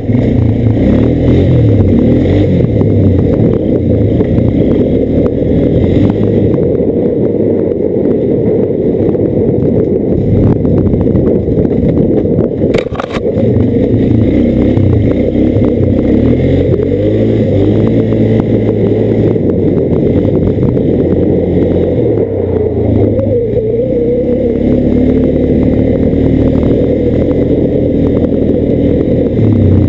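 Quad (ATV) engine running while the machine is ridden up a rough trail, its pitch rising and falling as the throttle changes. One sharp knock comes about halfway through.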